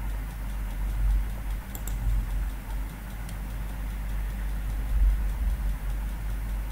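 Steady low background rumble with a couple of faint clicks, about two seconds and three seconds in: mouse clicks on an on-screen calculator.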